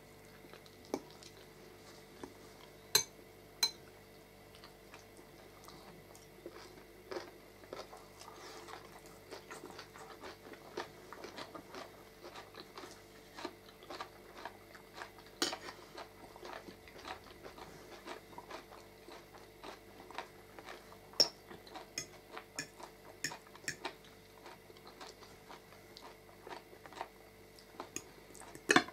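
Metal forks and spoons clinking and scraping on plates and glass bowls, with quiet chewing between: a string of irregular sharp clicks, a few louder knocks among them, about 3 s in, midway and near the end.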